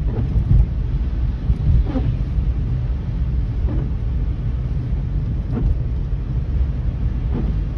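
Road and engine noise inside a moving car's cabin, a steady low rumble, with a faint swish of the windscreen wipers about every two seconds.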